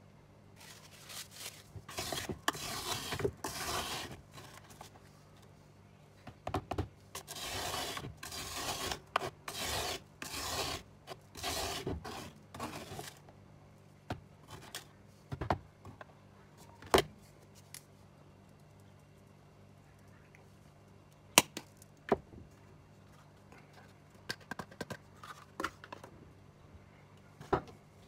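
Metal spoon scooping and scraping a coarse, grainy dark paste in a plastic tub, making a crisp, rustling, scratchy sound in repeated strokes through roughly the first half. A few sharp clicks follow in the second half.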